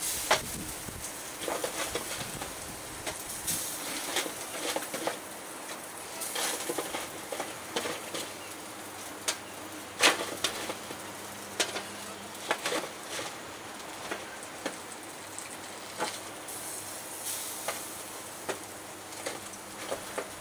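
Metal tongs clicking and scraping on aluminium foil trays as roast vegetables are lifted out and dropped onto another tray, with irregular sharp clicks, the loudest about halfway through. A steady sizzle from the hot barbecue runs underneath.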